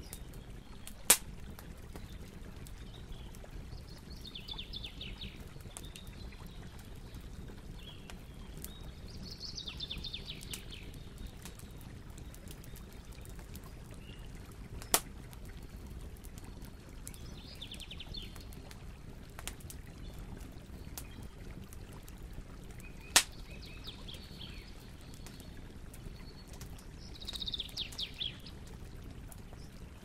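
Large bonfire burning: a steady low rush of flames with scattered crackles and three sharp pops, about a second in, halfway through and about three quarters through. Short bursts of high chirping come and go every few seconds.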